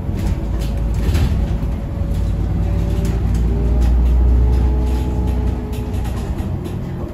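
Cabin sound of an Iveco Urbanway 18 Mild Hybrid articulated bus under way: a low drivetrain and road rumble with a gliding mechanical whine and scattered rattles. It swells about four seconds in and then eases off.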